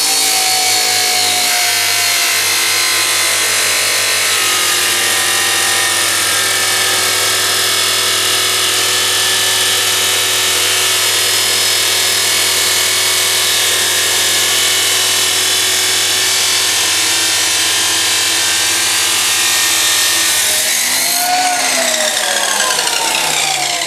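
Abrasive cut-off saw (chop saw) cutting through steel: a steady, loud grinding whine over the motor's hum. About 21 seconds in the motor is switched off and its whine falls in pitch as the disc spins down.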